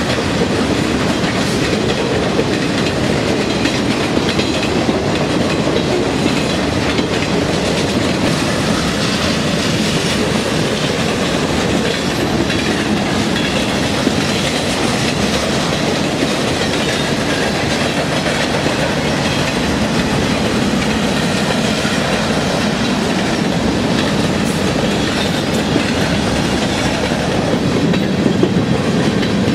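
Union Pacific freight train of autorack and tank cars rolling past at steady speed: a continuous rumble with the wheels clattering over the rails.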